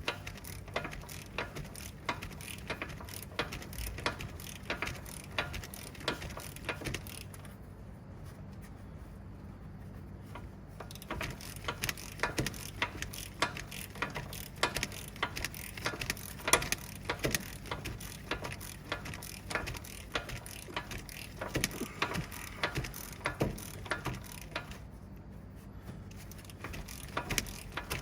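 Hand ratchet wrench clicking in rapid strokes as a fastener is worked on the truck, pausing briefly about eight seconds in and again near the end.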